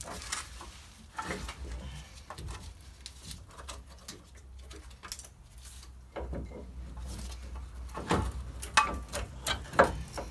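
Irregular clinks and knocks of metal parts as the old wheel hub assembly is worked off a truck's spindle, with a few sharper knocks near the end.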